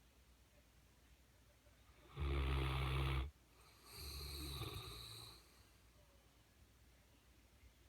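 Mastiff snoring: one loud, deep snore about two seconds in, followed by a softer, longer breath out with a faint high whistle.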